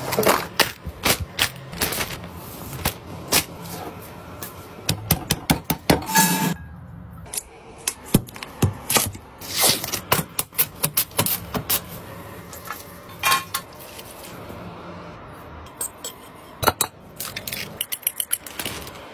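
Kitchen prep clatter: a string of sharp knocks, clicks and clinks of utensils against a metal pot and a ceramic bowl, with quick runs of taps about five seconds in and near the end.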